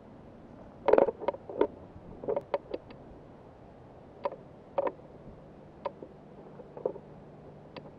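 Handling noise from a small camera being picked up and carried: a series of short knocks and clicks, bunched in the first three seconds and then coming about once a second.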